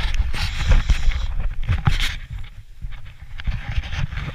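A person running on a grass path with a body-worn camera: repeated low thuds of footfalls and jostling, over a steady noise of wind and rustling on the microphone.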